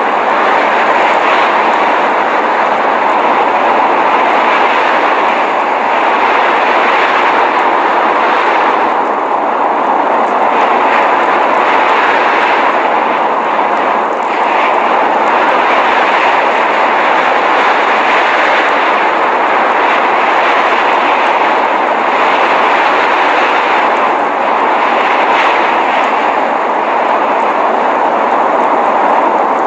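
Steady rushing noise of a blizzard, wind and driving snow, swelling and easing a little but never stopping.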